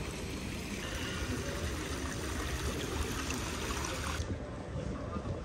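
Steady rush of water from an outdoor plaza fountain, with low wind rumble on the microphone. About four seconds in it cuts to a quieter outdoor ambience.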